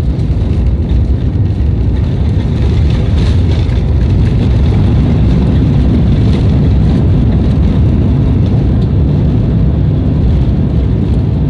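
Steady loud rumble and roar of a jet airliner heard from inside the cabin as it rolls out on the runway just after landing, with spoilers raised and flaps extended.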